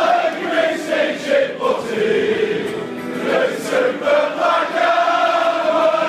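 A crowd of football supporters singing a chant together in unison, many voices holding long notes.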